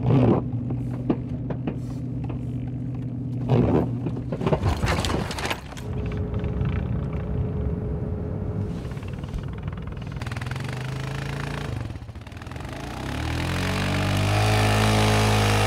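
Vehicle engines working through deep snow: a steady engine hum with a few knocks, then near the end an ATV engine revs up hard while its wheels spin in the snow.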